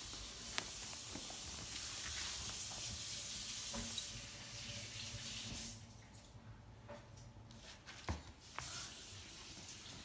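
Fabric shopping bag rustling steadily as the cat inside shifts and the bag is handled, stopping about six seconds in; after that only a few light knocks.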